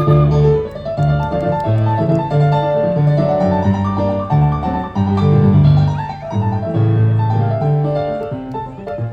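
Live instrumental Andean Colombian folk music from a small ensemble: a quick tune with keyboard to the fore over a steady, rhythmic bass line.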